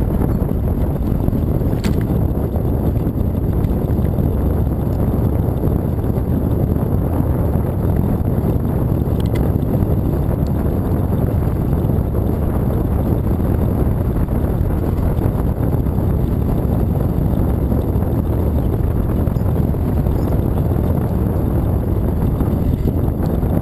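Wind buffeting a moving bicycle's camera microphone, mixed with the rolling rumble of the tyres on the trail surface: a loud, steady low rumble. A few faint ticks break through it.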